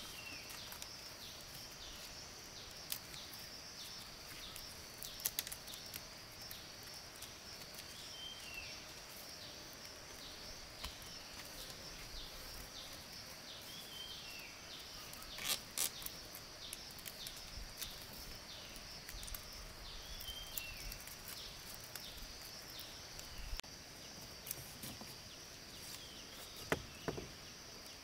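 Forest ambience: a steady high-pitched insect drone, a bird repeating a short falling call every five or six seconds, and a few sharp clicks or knocks, the loudest about halfway through and near the end.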